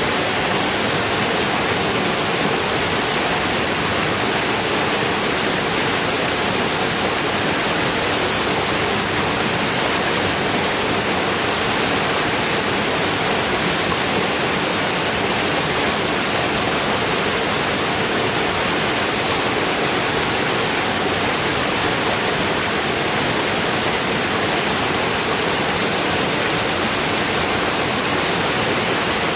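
Steady rain falling, an even, unbroken hiss with no single drops or other sounds standing out.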